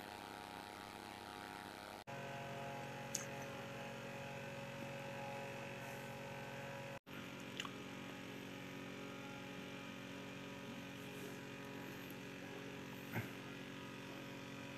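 Faint steady hum, cutting out for an instant twice, with a few tiny clicks.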